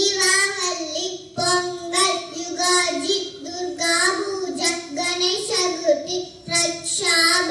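A young girl singing solo into a microphone, without accompaniment, holding long, fairly level notes with a couple of short breaks.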